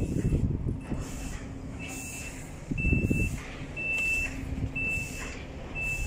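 A truck's reverse alarm beeping about once a second, each beep about half a second long, over the low rumble of the lorry's running engine.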